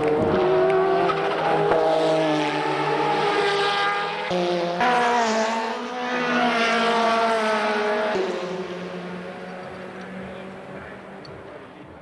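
Race car engines running at trackside, several engine notes overlapping and stepping in pitch now and then. The sound fades out over the last few seconds.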